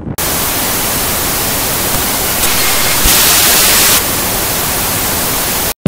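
TV-static hiss sound effect: a steady, even white-noise rush that gets louder for about a second midway, then cuts off abruptly just before the end.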